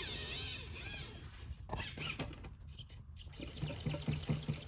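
Tiny SCX24 1/24-scale RC rock crawler working over rocks: its small electric motor and gears whine in short spurts, with light clicks and ticks of the tyres and chassis on the rock. Near the end the whine turns into a rapid pulsing as the throttle is feathered.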